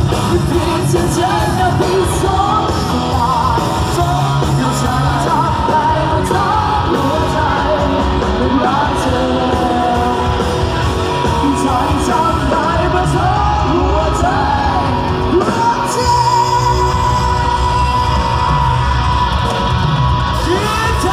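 Loud music with a singer, played through a large outdoor concert sound system, with heavy bass; people in the crowd yell over it.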